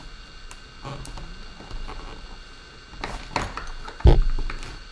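Hands handling the plastic shell parts of a DJI Phantom 4 Pro drone during disassembly: scattered small clicks and rustles, a cluster of them about three seconds in, then a sharp deep thump about four seconds in.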